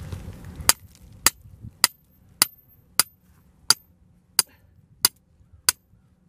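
Hammer driving a trap stake into the ground, about ten sharp blows at a steady pace of roughly three every two seconds, starting just under a second in.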